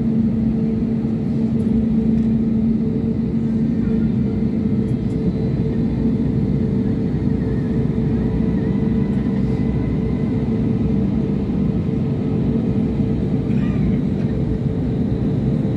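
Cabin noise of a jet airliner taxiing, heard from a window seat by the wing: the turbofan engines at low taxi thrust make a steady hum and drone that does not rise.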